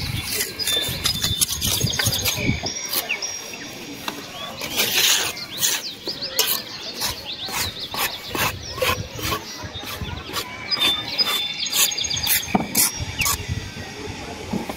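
Many small birds chirping and twittering over one another, with short sharp taps and scrapes from a mason's trowel working wet mortar and brick.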